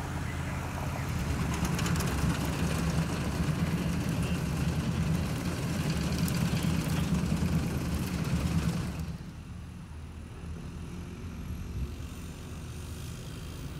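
Pickup truck engine running at a steady low pitch under a rushing noise. The rushing drops away suddenly about nine seconds in, leaving the engine fainter.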